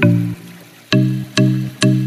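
Background music: a melody of short, fading pitched notes, about two a second.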